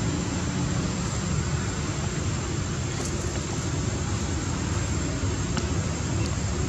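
Steady, even rumbling noise with a hiss over it, unchanging throughout.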